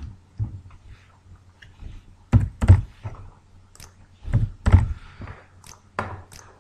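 Keystrokes on a computer keyboard as a number is typed in: a few scattered light taps, with two louder pairs of key hits about two and a half and four and a half seconds in.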